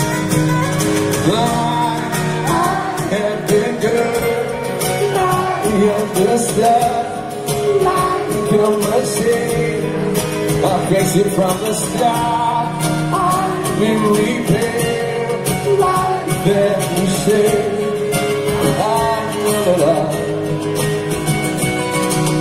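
Live acoustic band performance: several acoustic guitars strumming chords under a sung vocal line.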